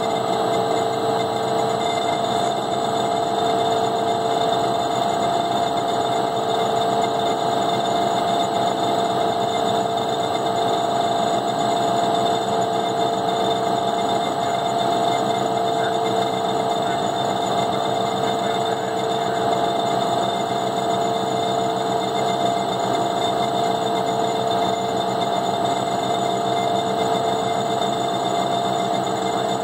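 Electric drive of a Visco Jet tote mixer running at constant speed, a steady hum with a few fixed whining tones, its shaft stirring thick orange juice concentrate.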